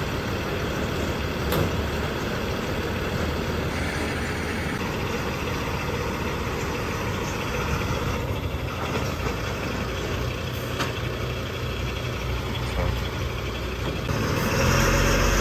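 Vacuum tanker truck's diesel engine idling steadily, growing louder near the end.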